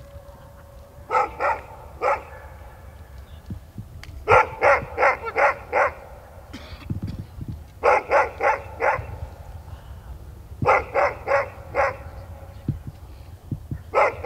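A dog barking in short runs of three to six quick barks, with pauses of a couple of seconds between runs.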